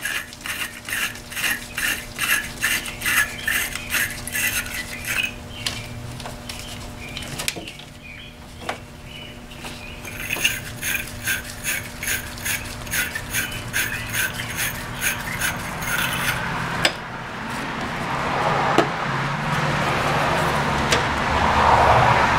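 Battery terminal brush twisted back and forth inside a battery cable clamp to clean it: rhythmic scraping strokes, about two to three a second, in two runs. A steady rushing noise builds over the last few seconds.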